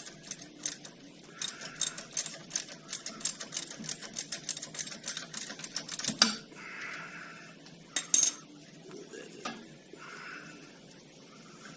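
Rapid, even clicking of a ratchet wrench backing out a brake caliper bolt, followed by two sharp metal clunks about six and eight seconds in, then quieter handling of parts.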